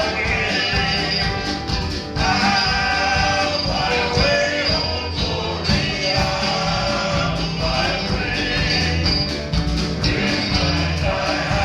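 Live Southern gospel quartet music: male voices singing in harmony over a band with a steady bass line and drum beat.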